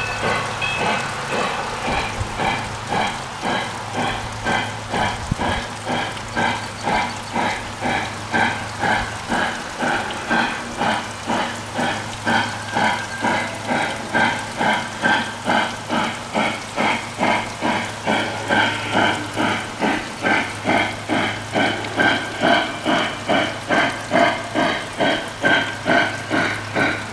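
Steam chuffing from the onboard sound system of a Lionel Legacy O scale Pennsylvania J1a 2-10-4 model locomotive running along its track. The chuffs come in a steady rhythm of about two a second over a low steady hum.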